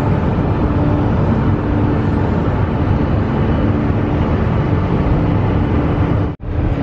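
Steady low rumble of a moving vehicle, with a faint steady hum running through it; it cuts off suddenly near the end.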